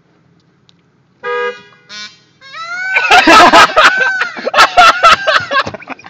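A car horn beeps once briefly about a second in, and a shorter honk follows. From about two and a half seconds in, loud calls come over and over, each rising and falling in pitch, mixed with sharp clicks.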